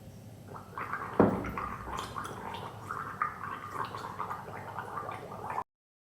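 A woman gargling to soothe a sore, hoarse throat: an irregular bubbling rattle that lasts about five seconds and stops abruptly. A sharp knock comes about a second in.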